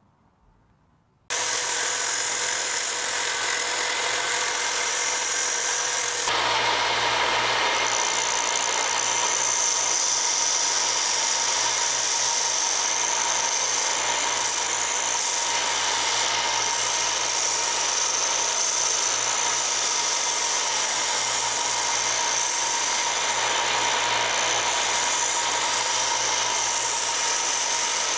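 Bench belt grinder running, with a cleaver's wooden handle scales being sanded against the moving belt: a steady sanding hiss over the machine's even hum. The sound comes in suddenly about a second in and grows harsher about six seconds in.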